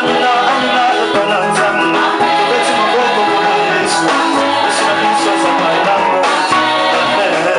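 Live gospel worship music: a group of singers at microphones singing together over live band accompaniment.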